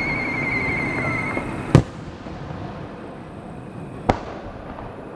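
Fireworks: a wavering whistle, slowly falling in pitch, fades out over a crackling haze about a second and a half in, then two sharp bangs, a little under two seconds in and about four seconds in, the first one louder.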